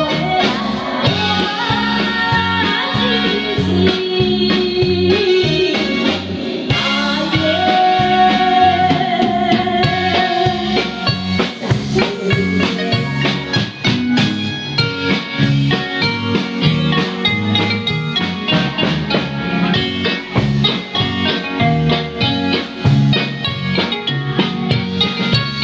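Live band music with a drum kit keeping a steady beat under the rest of the band; a melody line glides and holds long notes through the first half, and the drums stand out more in the second half.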